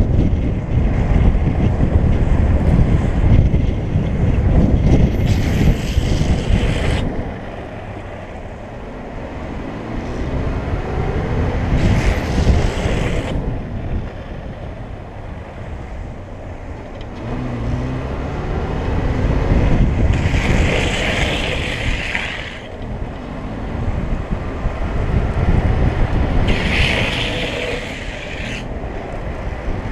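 Steady low road rumble and wind noise from a vehicle following a downhill longboarder, swelling and easing with speed. Four times, for a second or two each, a hissing rush rises over it. The last comes as the rider drops into a hand-down slide, with his urethane wheels sliding on the asphalt.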